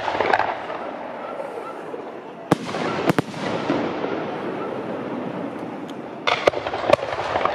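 Fireworks going off: a sharp bang about two and a half seconds in, two more in quick succession just after, and a cluster of crackling pops near the end, over a steady rumble of noise.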